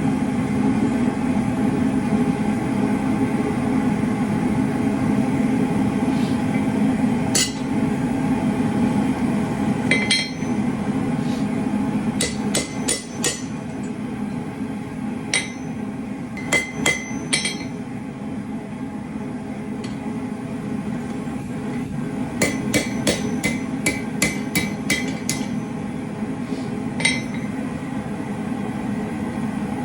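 Hand hammer striking steel on an anvil while forging tongs, in scattered single blows and quick runs of three to eight, each with a bright metallic ring. Under it runs a steady mechanical drone.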